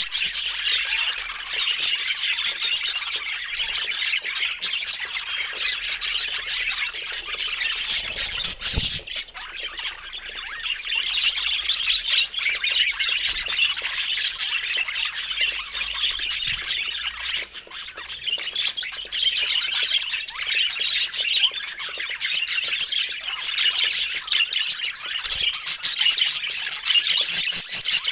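Budgerigars chattering and squawking continuously: a dense, busy stream of chirps and warbles.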